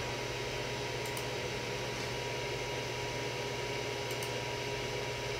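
Steady whir of the Creality CR-10S 3D printer's cooling fan at the front of the machine, running constantly and loudly enough that the owner apologises for it. Two faint clicks about a second in and about four seconds in.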